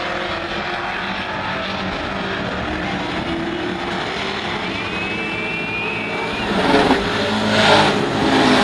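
Dirt-track race trucks' engines running hard around the oval, a steady mix of several engines at once. Near the end one truck passes close by and its engine swells loudly, then fades.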